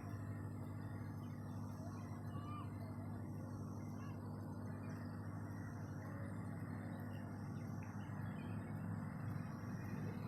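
Steady low background hum with a few faint bird chirps over it.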